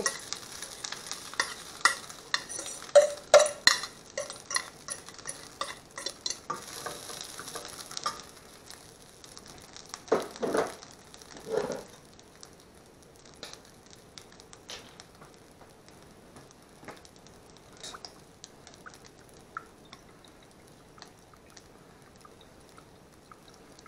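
Rice and vegetables frying in a pan, sizzling while a fork stirs and clinks against the pan, busiest in the first third. After that the sizzle goes on quieter with scattered clicks and a couple of louder knocks.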